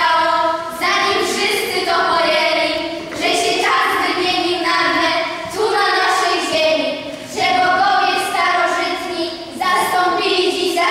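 A child singing a melody in phrases of long held notes, each about one to two seconds, with short breaths between phrases.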